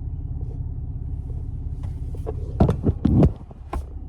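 Car engine idling with a steady low rumble; about two and a half seconds in, a few loud knocks and thumps come in as the rumble drops.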